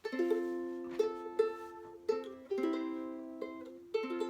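Chords strummed on a stringed instrument, about eight strokes, each ringing and fading before the next. This is the accompaniment to a goodbye song.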